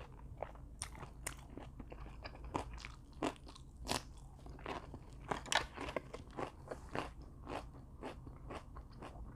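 Chewing crunchy fried twigim: a quick, irregular run of crisp crunches, with a few louder bites about four and five and a half seconds in.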